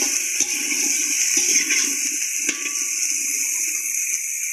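Cauliflower florets frying in hot oil: a steady, loud sizzle, with a spatula stirring them and clicking against the pan a couple of times.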